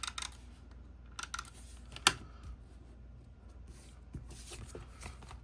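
Cardstock pieces of a pop-up card being handled on a table: light rustles and small taps, with one sharp click about two seconds in.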